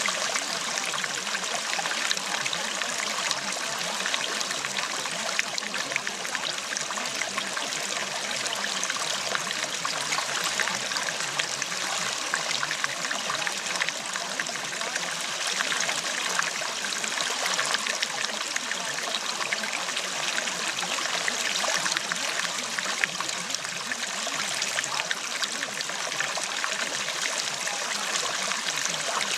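Running water of a stream, a steady even rush with fine trickling.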